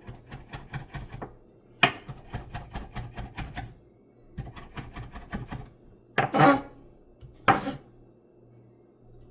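Chef's knife chopping chives on a cutting board in quick runs of even strokes, about five a second, pausing between runs. Two louder knocks come near the end.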